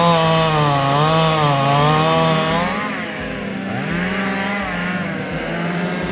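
Two-stroke chainsaw running and cutting into wood, its engine pitch wavering under load, then dropping briefly about three and a half seconds in before revving back up and holding steadier.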